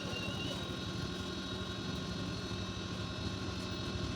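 A motor running steadily, with a fast low rumble under a constant hum.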